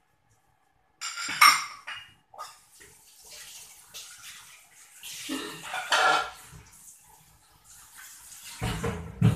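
Metal ladle clanking against a stainless steel cooking pot, loudest about one and a half seconds in, over the bubbling of a simmering curry broth. A low thud comes near the end.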